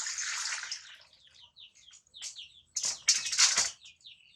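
Water pouring and splashing fades out, then a newborn baby monkey gives a string of short, high squeaks. Two loud splashes of water come about three seconds in.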